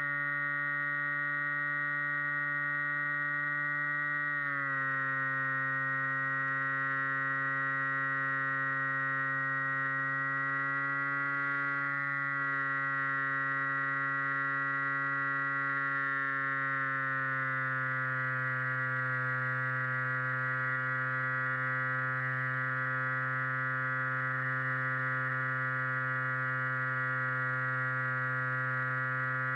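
RC flying wing's motor and propeller, heard from the onboard camera, giving a steady pitched whine. The pitch drops a little about four seconds in and again about two-thirds of the way through, as the throttle changes.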